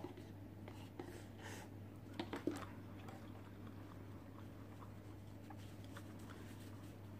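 Quiet handling sounds as a paper cup of ramen is set down on a table and a paper tissue is unfolded: a few soft knocks and rustles, the loudest about two and a half seconds in, over a low steady hum.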